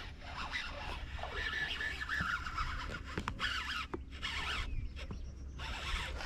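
Fishing reel being cranked to bring in a hooked fish, an uneven scratchy whirr with a few short clicks, over a steady low rumble.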